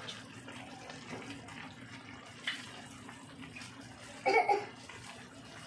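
Masala gravy sizzling steadily in a frying pan as chopped brinjal pieces go in, with a short knock about two and a half seconds in. A brief burst of a voice cuts in a little after four seconds.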